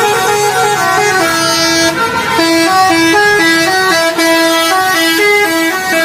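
Basuri telolet bus horn, a multi-trumpet air horn, playing a fast melody of stepped notes, with a short break about two seconds in.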